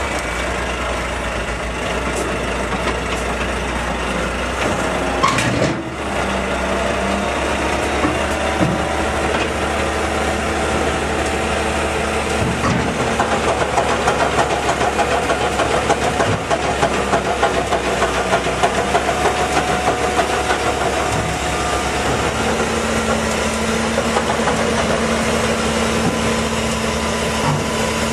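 Hook-lift truck's diesel engine running steadily under load while its hydraulic arm tips a skip bin loaded with rubble, with a held hum that shifts pitch a few times.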